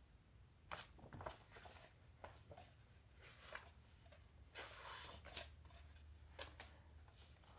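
Faint rustling and soft flaps of glossy textbook pages being turned by hand, in short scattered bursts with a longer rustle about five seconds in.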